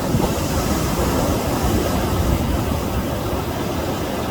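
Ocean surf: a wave breaking and washing up the beach, a loud, steady rushing noise with a heavy low rumble, which swells up just before and holds on.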